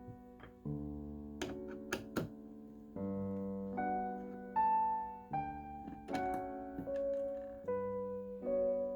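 Slow, gentle piano music, with sustained notes and chords changing about every second. A few sharp clicks sound through it, three close together about a second and a half in and a couple more about six seconds in.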